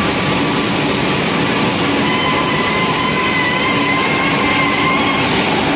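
Wood pellet mill machinery running: a loud, steady industrial din with a faint high whine through the middle.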